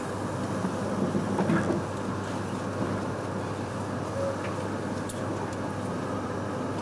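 Steady running noise of a Shinkansen train: an even rumble with a constant low hum and a few faint ticks.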